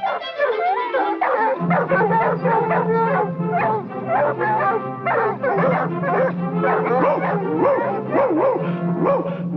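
A pack of cartoon hunting dogs barking, yelping and howling continuously over an orchestral score with held low notes.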